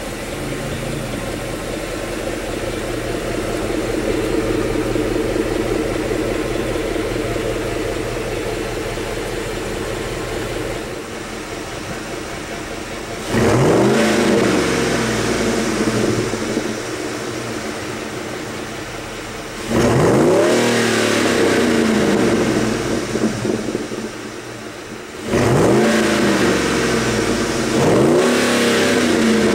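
Ford F-150's 5.4L three-valve Triton V8 through a Corsa cat-back exhaust, running steadily, then free-revved three times, about 13, 20 and 25 seconds in. Each rev rises sharply in pitch and loudness and falls back to idle.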